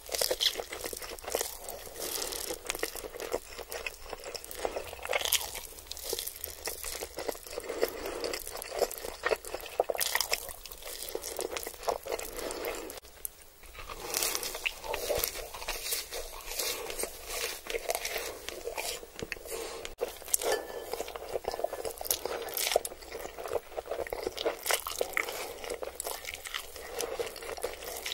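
Close-miked eating sounds: noodles drawn into the mouth and chewed wetly, and crispy fried chicken nuggets bitten with sharp crunches, in a dense run of clicks and crunches. There is a short break about 13 seconds in.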